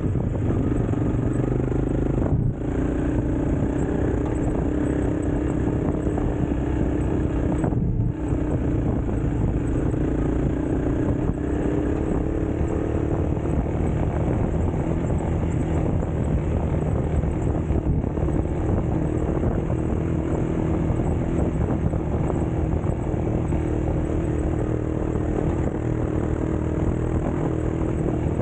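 Motorcycle engine running steadily under way, its pitch drifting slowly, with a steady rush of noise behind it. The sound dips briefly twice, about two and a half and eight seconds in.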